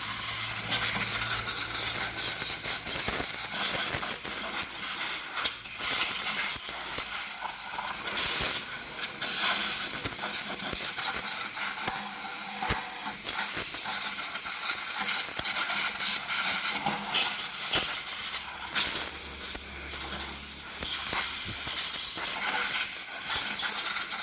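High-pressure jet spraying steadily into the open primary case of a Royal Enfield Bullet engine, a loud hiss with small spatters and ticks, washing out the dirt that builds up around the chain and tensioner. It stops suddenly at the end.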